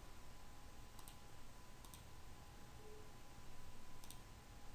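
A few faint computer mouse clicks, some in quick pairs, over low background hiss.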